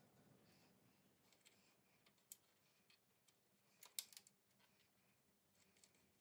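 Near silence broken by a few faint, small clicks and taps of hands fitting the safety cover back over the thicknesser's spiral cutterhead, with a short cluster of clicks about four seconds in.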